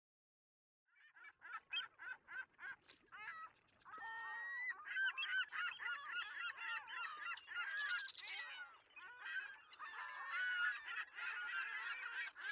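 A flock of birds calling. It starts about a second in with separate calls, a few a second, and from about four seconds in the calls pile up into a dense, overlapping chorus.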